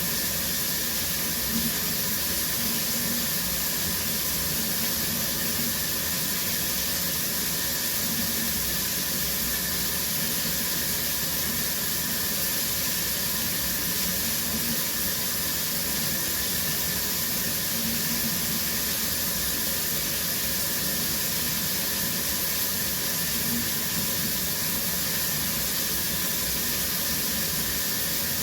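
Shower running steadily: a continuous hiss of water spraying from the showerhead and splashing down in a small tiled bathroom.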